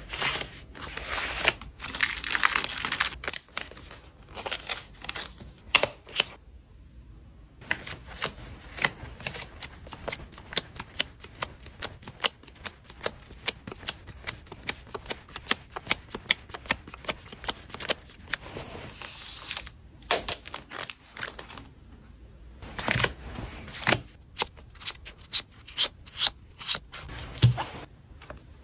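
Photocards being packed by hand into plastic sleeves and packaging: a steady run of small clicks and taps, with stretches of crinkling plastic a second or two in and again about two-thirds of the way through, and a brief pause around six seconds in.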